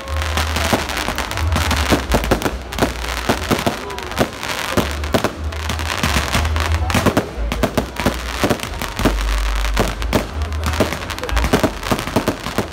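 Aerial fireworks bursting overhead: a rapid run of sharp bangs and pops, several a second, over dense crackling from the spreading stars.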